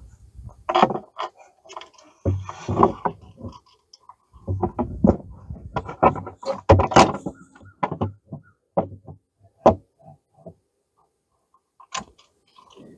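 Irregular knocks, clicks and scrapes as a plastic A-arm guard is pressed against a UTV's front suspension arm and its bolts, washers and nuts are handled and started by hand. The busiest handling comes in two spells in the first half, followed by a few single knocks.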